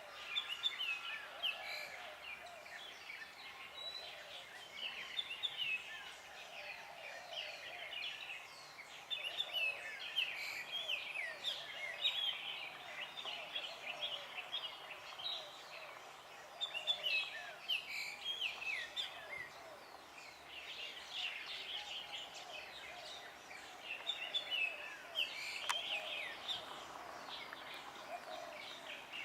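Dense chorus of many wild birds chirping and singing at once, with quick, overlapping short calls and a fainter, lower layer of chatter beneath them.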